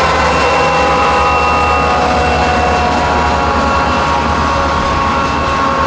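CSX freight train led by EMD GP40-3 and GP40-2 diesel locomotives, running close by: a deep, pulsing engine rumble under a steady whine.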